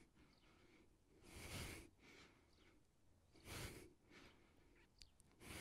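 A man's faint breathing under exertion: three hard exhalations about two seconds apart.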